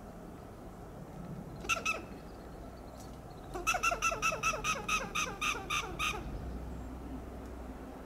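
Western gray squirrel giving alarm calls: a short double call about two seconds in, then a fast run of about a dozen calls, around five a second, lasting some two and a half seconds.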